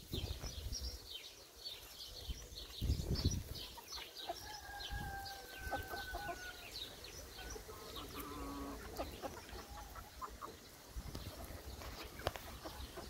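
Chickens clucking and calling quietly while pecking at bread, with one longer held call about four seconds in and a few short calls later.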